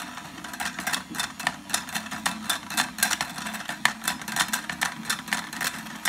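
Battery-powered toy mini washing machine running: its small motor hums steadily while the drum swirls water around a makeup brush, with frequent irregular clicks and rattles.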